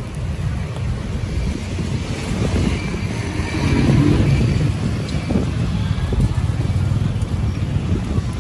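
City street noise of passing motor traffic, cars and motorbikes, a steady low rumble that swells about four seconds in, with voices in the background.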